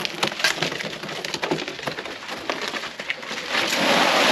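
Metal wheelbarrow loaded with sand and gravel rattling with many small clicks and crunches as it is pushed over rubble, then tipped about three and a half seconds in, the load pouring out in a loud rush of sand and stones.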